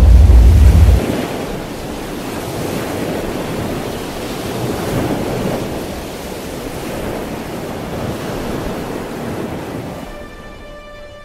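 A deep boom ending about a second in, then a steady rush of wind and surf as sea-storm ambience. Sustained music notes come in near the end as the rush fades.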